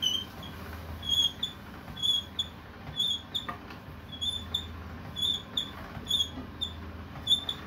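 Hand-cranked pasta roller squeaking with each turn of its crank as a sheet of pasta dough is rolled through: short high squeaks, two or three a second, in a steady run.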